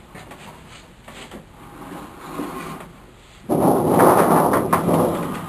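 Hand cutter drawn along a sheet-metal brake, slicing a strip off painted sheet metal: light scraping at first, then a loud grating scrape that starts suddenly about three and a half seconds in and lasts a second and a half.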